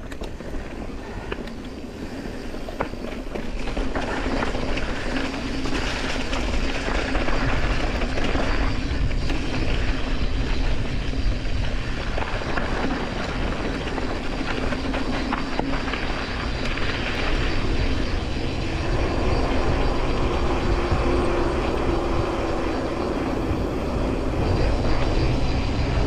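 Wind rushing over the camera microphone, with the tyres rolling on the dirt trail, as a mountain bike coasts downhill. It grows louder about four seconds in.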